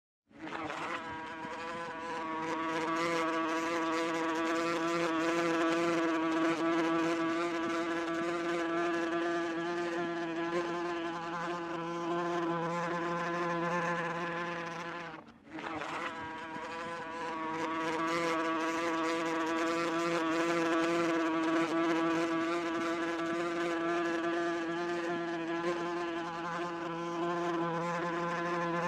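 Wasp buzzing in flight: a steady, loud droning buzz that wavers slightly in pitch and loudness, cutting out briefly about halfway through before starting again.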